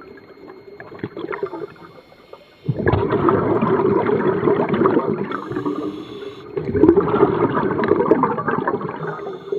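Scuba regulator breathing underwater: a quieter stretch, then two long rushes of bubbling exhaust bubbles, the first about three seconds in and the second near seven seconds.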